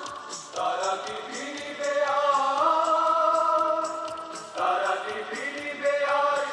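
Music with a choir singing long held notes that change every second or two, over a steady ticking beat.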